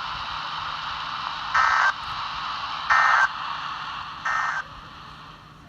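Three short bursts of Emergency Alert System (SAME) end-of-message data tones, each about a third of a second and roughly 1.3 s apart, over steady radio hiss. They mark the end of the alert broadcast.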